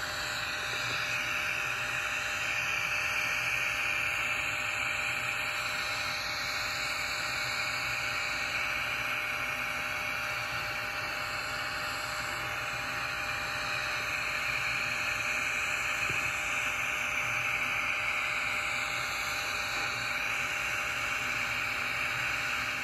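TIG welding arc on a steel pipe coupon hissing steadily as the fill pass is laid in, swelling and easing slightly in level.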